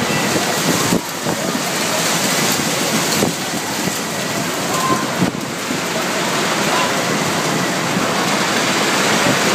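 Heavy rain and strong wind of a severe storm, a loud, steady rush of noise heard through an open roll-up bay door.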